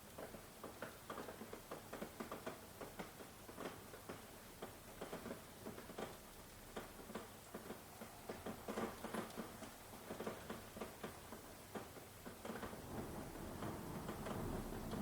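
Rain falling, heard as many separate drops pattering and ticking irregularly. Near the end a low rumble of distant thunder builds under the drops.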